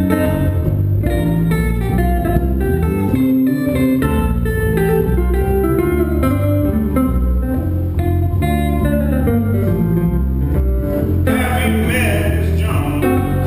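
A jazz duo of guitar and electric bass playing live. Guitar chords and melody lines run over a moving bass line.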